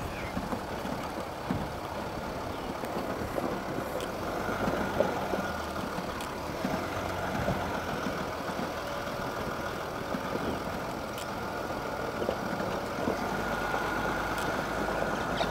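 An engine running steadily, with a faint high whine joining in a few seconds in.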